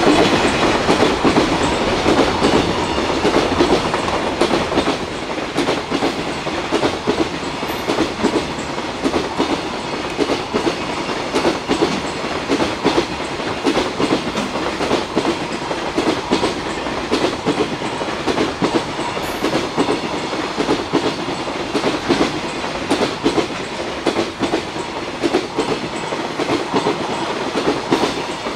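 Long freight train of container flatcars passing close by, its wheels clicking steadily over the rail joints; the sound starts to fall away near the end as the last wagons go by.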